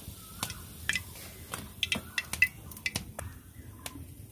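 Scattered light clinks and taps of a metal slotted spoon against the wok and steel plate, with a small bird chirping in short calls every second or so.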